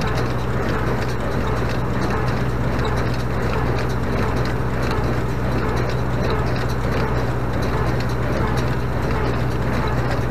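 Renault 656 tractor engine running steadily under load, driving a Renault 100 small square baler through its PTO. The baler's pickup, plunger and packing mechanism clatter and knock in a steady rhythm as it presses second-cut clover hay.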